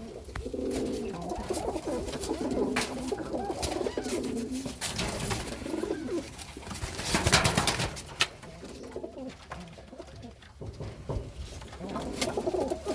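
Serbian Highflyer pigeons cooing, with low warbling coos through the first half and again near the end. A louder, short rushing noise about seven seconds in and scattered small clicks.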